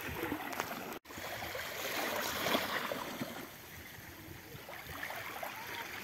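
Small waves lapping and gurgling at a sandy shore. The sound cuts out briefly about a second in.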